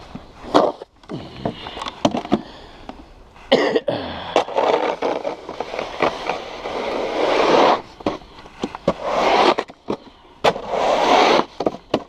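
Snow shovel scraping snow in several long pushes, with sharp knocks between them.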